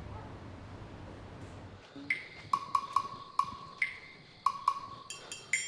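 A light, plinking music cue of short struck notes, about two or three a second, starting about two seconds in after a faint hush.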